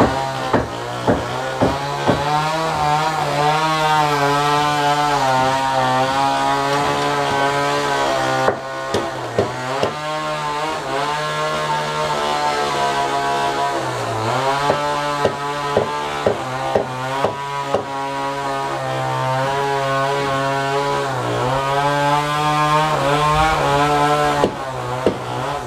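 Sharp chopping blows of a hand tool biting into a wooden beam, in short runs of about two a second near the start, around nine seconds in and near the end. Behind them runs a loud, steady machine drone whose pitch swells and sags, like a power tool working under changing load.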